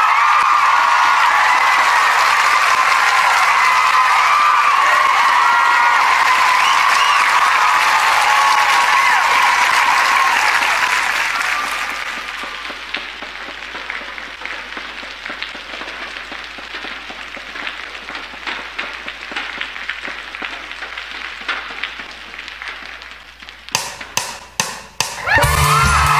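Audience cheering and whooping over applause, dying down about halfway through to lighter clapping. Loud music starts again near the end.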